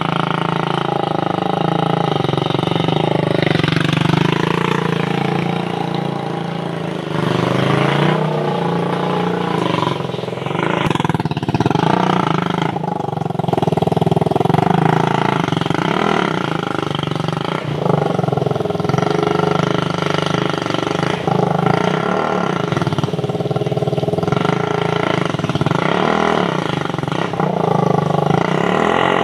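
Motorcycle engine of a homemade mini buggy running under way, its pitch rising and falling again and again as the throttle is opened and eased.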